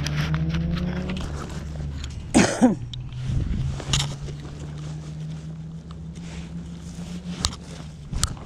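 A person coughs once, loud and sudden, about two and a half seconds in, over a steady low hum, followed by a few faint clicks.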